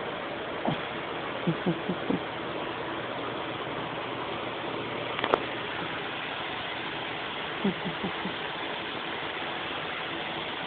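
Bengal cat purring steadily right against the microphone, with a few short soft bumps and one sharp click about five seconds in.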